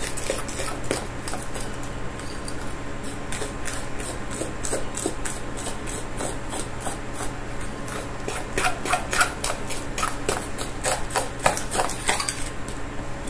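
A utensil stirring and scraping through thick batter in a bowl, mixing flour into mashed banana, egg and sugar, in quick repeated scraping strokes that grow louder and denser about halfway through.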